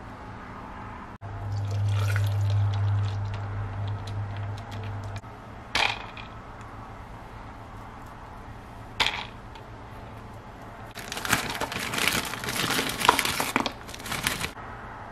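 Frozen whole strawberries tipped from a plastic bag, clattering and rattling into a plastic personal-blender cup for about three seconds near the end. Earlier there is a low steady hum for a few seconds and two short knocks.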